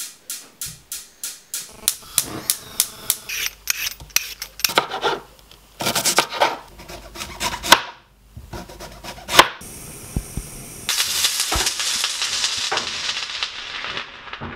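Kitchen knife chopping vegetables on a chopping board: a quick run of regular taps, then heavier clustered chops and one sharp knock. After that, food starts sizzling steadily in a frying pan on a gas hob.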